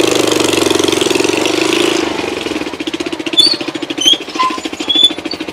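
Motorcycle engine running as the bike pulls up, getting somewhat quieter about two seconds in. A few short, high squeaks come in over it in the last couple of seconds.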